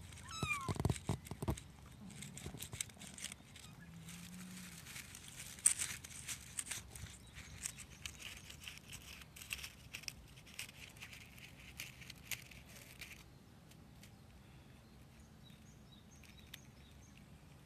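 Stray kittens with a brief meow near the start, then about ten seconds of rapid rustling and small clicks as they scuffle about, before it goes quieter.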